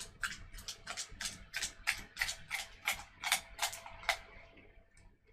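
A quick run of sharp metallic clicks, about four a second, stopping about four seconds in, from hands working the parts of a Glock 23 pistol magazine.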